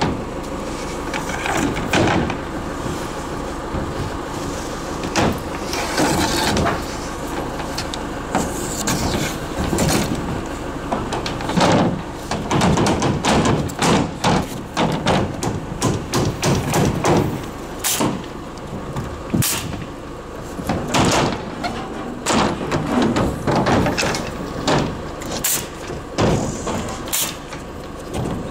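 Pneumatic nail guns firing nails through plywood roof sheathing into wooden rafters: sharp shots, some in quick runs and some single, with the knock of boards being set down.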